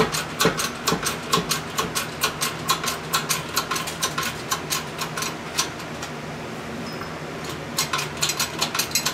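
Hydraulic shop press working on a camshaft timing gear: rapid, even clicking about four times a second over a steady low hum, pausing for a couple of seconds near the end before it starts again.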